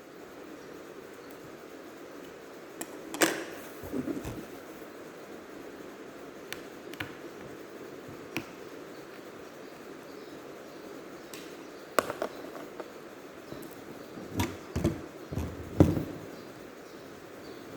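Laptop disassembly handling: scattered light clicks and knocks of tools and plastic casing parts, with a cluster of them near the end, over a steady low hiss.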